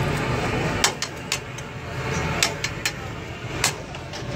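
Sharp metal clicks and taps at a steel griddle, about six scattered through, over a steady low rumble of traffic and engines.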